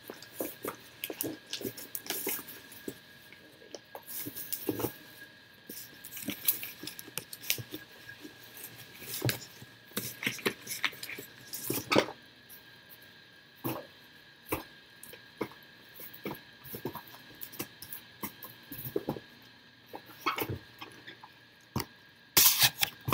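Plastic packaging crinkling and items being moved about in a cardboard box, in irregular bursts of rustles and small knocks. There is a sharper knock about halfway through and a loud rustle near the end.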